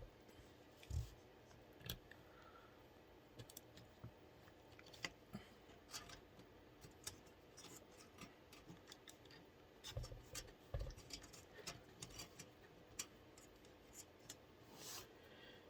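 Faint, scattered small clicks and light taps of plastic being handled, with a few soft thumps: the CPU cooler's fan cable being worked onto the motherboard's fan header.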